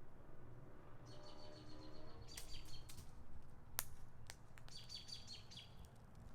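Faint background birdsong: two runs of quick, high repeated chirps, with a few sharp clicks in between.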